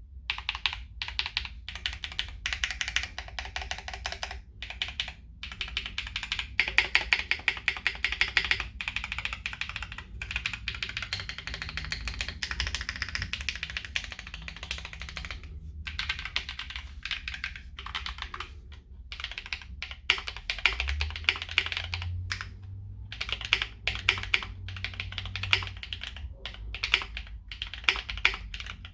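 Typing on a KBD8X MKII mechanical keyboard with a brass plate, lubed Holy Panda tactile switches and GMK keycaps: fast, dense keystrokes in runs with brief pauses between them.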